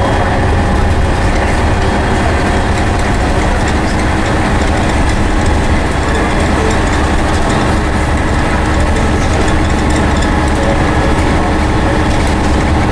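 Scania N113CRB single-decker bus with a Voith automatic gearbox, heard from inside the saloon while under way. The diesel engine is running steadily with road noise, a deep, even drone.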